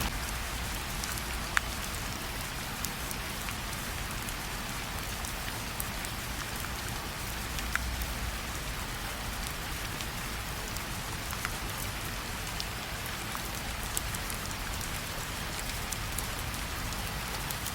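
Steady rain falling, an even hiss with a low rumble underneath and a few louder single drops ticking now and then.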